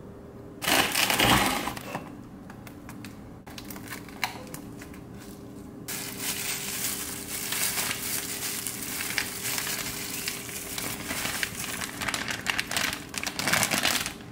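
Plastic crinkling and rustling from a zipper freezer bag and the chicken's plastic wrap and tray as raw drumsticks are handled and bagged. There is a loud burst of crinkling about half a second in, then a long stretch of dense crinkling in the second half.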